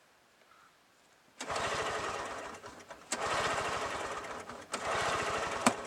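Two-stroke snowblower engine cranked three times in short bursts of rapid, even compression pulses, without catching. It won't fire because the key switch is off.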